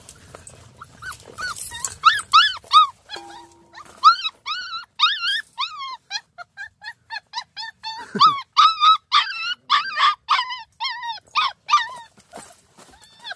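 Hunting-dog puppies whining and yelping in a rapid string of short, high, rising-and-falling calls, several a second, starting about two seconds in.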